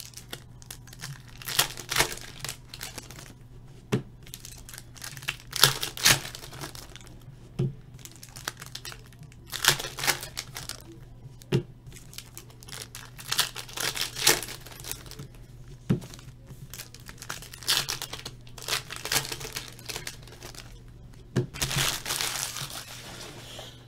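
Trading-card pack wrappers crinkling and tearing in irregular bursts as baseball card packs are opened by hand and the cards handled, with a few sharp taps.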